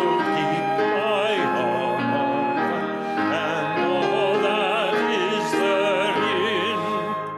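Hymn singing with a wide vibrato over instrumental accompaniment, in long held phrases. It breaks off briefly near the end.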